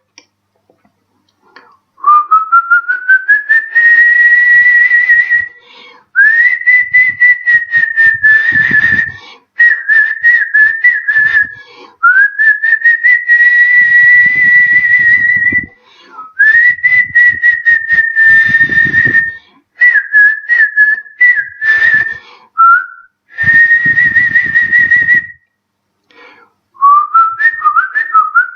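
A man whistling through his lips in a string of phrases, each two to four seconds long. Most open with a rising slide and then hold a high, rapidly fluttering note, with brief breaks for breath between phrases.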